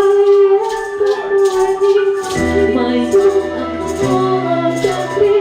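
Band music with a held, slightly wavering melody note over a shaker rhythm. Low bass notes come in about two and a half seconds in.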